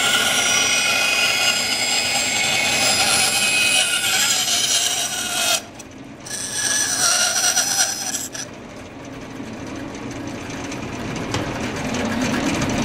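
Bandsaw cutting through a wooden board: a loud, steady sawing noise with a high whine. The cutting noise drops out briefly at about five and a half seconds and comes back. After about eight seconds it gives way to the quieter sound of the saw running with no wood in the blade.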